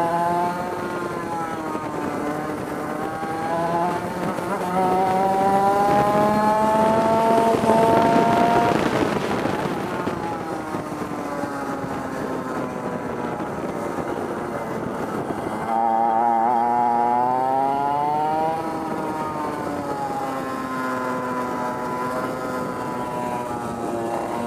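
Historic 100cc two-stroke kart engine heard onboard at racing speed, its buzzing note climbing as it revs out along the straights and dropping back for the corners. The pitch rises for several seconds, falls away about nine seconds in, then jumps louder and climbs again about sixteen seconds in.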